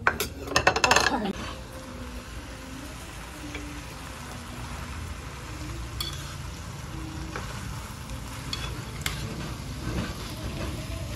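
Clinks of small ceramic bowls being set down on a table, then pork belly and squid stir-fry sizzling in a metal pan on a portable gas burner as spoons stir it, with a few clicks of the spoons against the pan.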